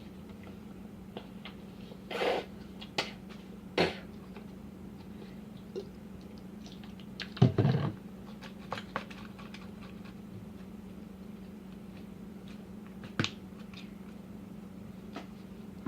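Slime being handled and squished: a few scattered short squelches and clicks, the loudest about halfway through, over a steady low hum.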